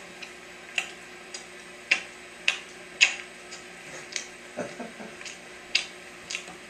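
Scattered sharp clicks in a quiet room, about a dozen at uneven spacing, with a brief faint voice-like sound about four and a half seconds in.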